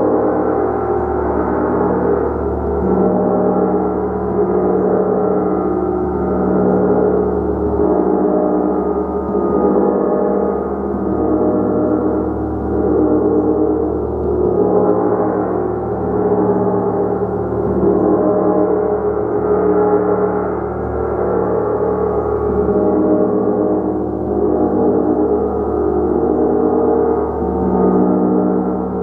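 Large hanging gong played continuously with a mallet: a sustained, loud wash of many overlapping ringing tones that swells and eases every couple of seconds as it is struck again and again.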